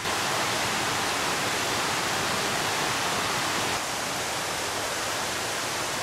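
Steady rush of water spilling over rock ledges in a small waterfall and river, a little quieter from about four seconds in.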